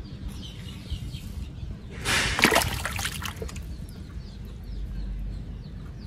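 Water splashing in a shallow puddle for about a second and a half, starting about two seconds in, as a fish is caught by hand. Faint bird chirps repeat in the background.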